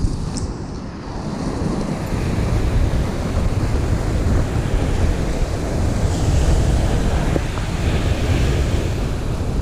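Surf breaking and washing up the sand, with wind buffeting the microphone in a steady low rumble; the wash swells a little past the middle.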